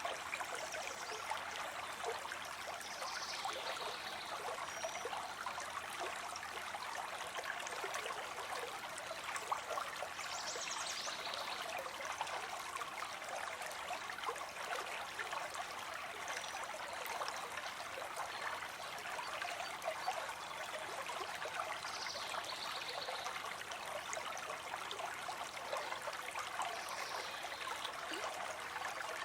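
Stream water running steadily over rocks, a continuous splashing rush with small trickles and drips through it.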